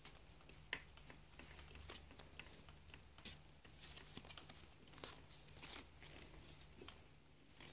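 Faint, scattered taps and rustles of a cardboard board book being handled, its stiff pages turned.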